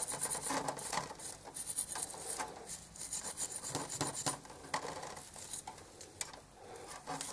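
Steel-wool scouring pad scrubbing a die-cast model car body, rasping off paint softened by stripper in quick, irregular strokes.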